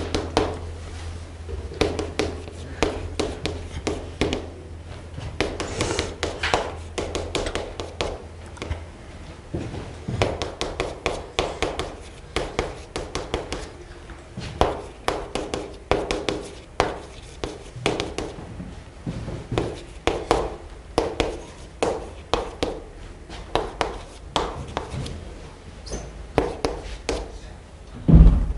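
Chalk writing on a chalkboard: a long run of quick taps and short scratchy strokes as words are written out one after another.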